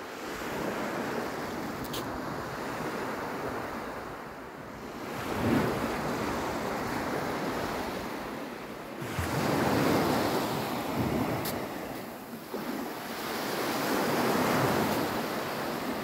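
Small sea waves breaking and washing up a sand-and-pebble shore. The surf swells every four to five seconds.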